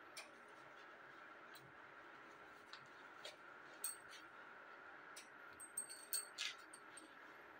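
Bangles clinking in a few short, faint clicks as the wearer moves her arms. The clicks are loudest about four seconds in and again around six seconds in, over a faint steady room hum.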